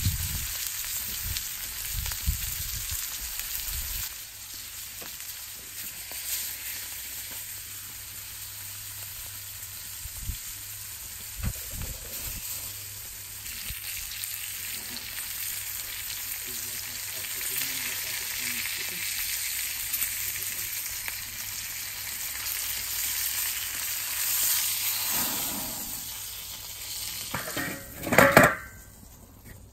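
Steak and cherry tomatoes sizzling in oil in a cast-iron skillet over a wood fire: a steady frying hiss with a few sharp pops. Near the end comes a short, loud pitched sound.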